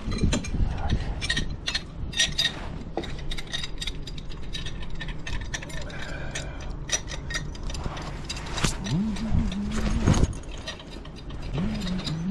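Hand tools working on metal gas-pipe fittings: a string of quick metallic clicks and ticks, with a few louder knocks.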